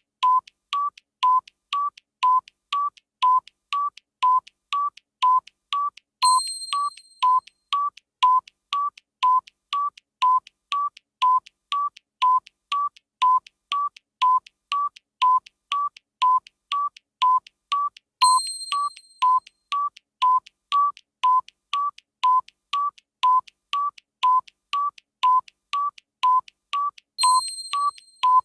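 Countdown timer's tick-tock sound effect: short electronic beeps alternating between two close pitches, a little over two a second. A bright bell-like chime sounds over the ticking three times.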